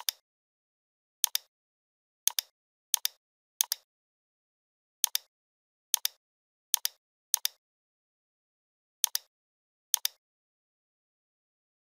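Computer mouse clicking about ten times at uneven intervals, most clicks heard as a quick press-and-release pair, with dead silence between.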